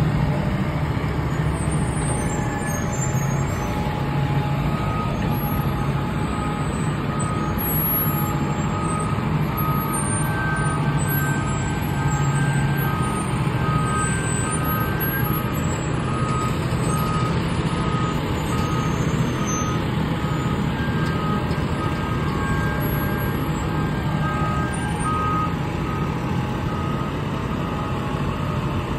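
Fire trucks' engines running with a low steady hum while a backup alarm beeps over and over as a truck reverses into the station.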